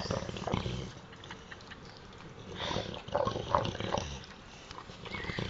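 Boxer dog snoring in its sleep: two rasping snores about three seconds apart, one with each breath, and a thin whistling tone near the end.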